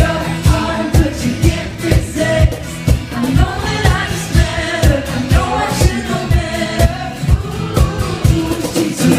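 Live pop band playing, with lead vocals sung over a steady drum beat of about two kicks a second.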